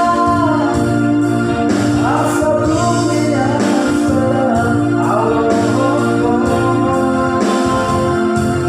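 A voice singing a slow song over electronic keyboard accompaniment, with sustained organ-like chords and a bass line.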